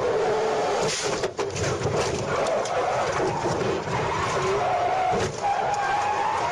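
Inside the cabin of a Nissan GT-R as it crashes on a race track: sharp impacts about a second in, the crash that sets off the airbags, amid steady rushing road and wind noise and a wavering engine tone.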